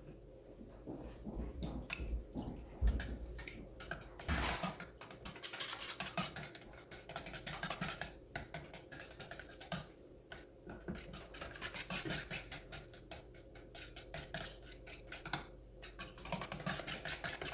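A bundle of wooden sticks stirring thick, long-settled paint in a metal paint can: continuous wet scraping with many small clicks and knocks as the sticks rub the bottom and walls of the can.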